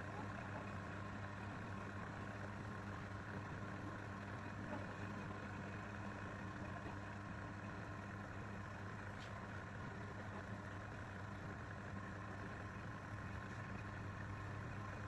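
Woodturning lathe's electric motor running steadily with a low hum.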